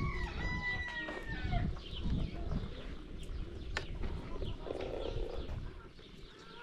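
Farmyard poultry calling: one drawn-out, gliding call in the first second and a half, then scattered fainter sounds.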